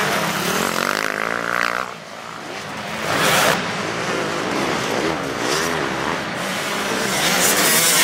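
Motocross dirt bike engines revving, their pitch rising and falling with the throttle as the bikes ride past.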